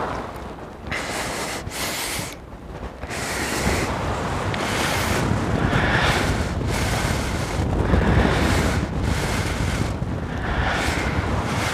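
Wind buffeting the microphone: a loud rushing noise with a deep rumble, swelling and easing in gusts about once a second.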